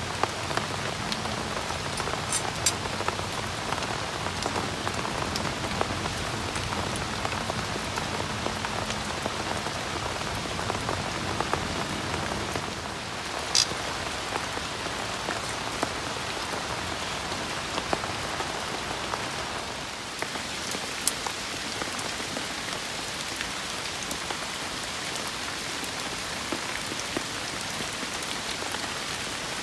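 Steady rain falling on a camp tent or tarp, with scattered drop taps and one sharper tap about halfway through.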